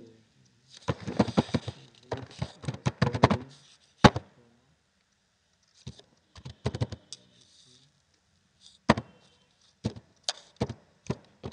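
Computer keyboard typing in short bursts of keystrokes, with pauses between the bursts.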